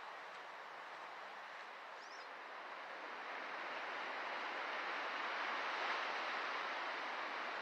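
Soft, steady natural outdoor noise, a hiss of wind or sea with no distinct events, swelling a little in the middle. A faint high chirp comes about two seconds in.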